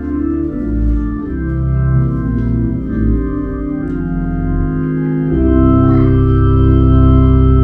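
Church organ playing the closing chords of a prelude: sustained chords shifting every second or so, then settling about five seconds in onto one long held chord.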